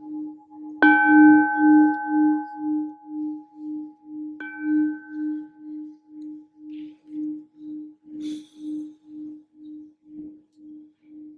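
Metal singing bowl struck twice with a mallet, about a second in and again about four and a half seconds in, each strike adding bright ringing overtones that fade within a couple of seconds. Under them the bowl's low hum rings on throughout, pulsing about three times a second and slowly dying away.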